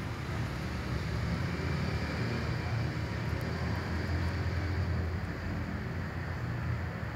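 Steady low rumble with a hiss of background noise, holding even throughout; no meows stand out.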